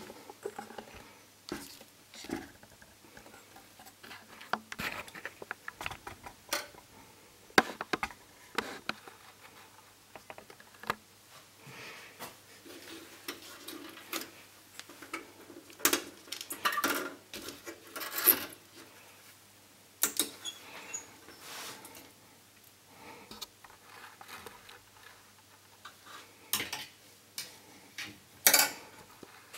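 Small irregular clicks, taps and short scrapes of hands fitting a thin glass CCFL backlight tube into the plastic lamp holders of an LCD TV's backlight panel, with a few sharper clicks in the second half.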